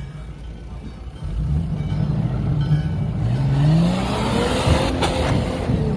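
Off-road 4x4's engine revving hard under load on a steep dirt climb. It gets louder about a second in, and its pitch rises for about two seconds. A hiss of spinning tyres throwing dirt comes near the peak.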